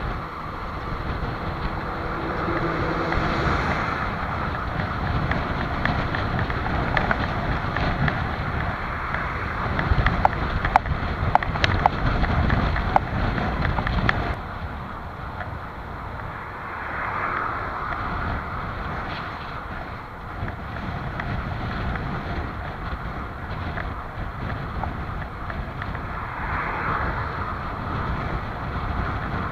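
Strong wind rushing over the microphone of a cyclist riding along a main road, a steady rush. A run of sharp clicks and knocks comes about ten to fourteen seconds in, after which the rush is a little quieter.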